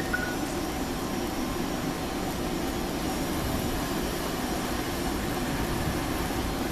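Steady hum and rumble of a Toyama Light Rail TLR0600 light-rail tram, holding an even pitch, with a short electronic beep right at the start.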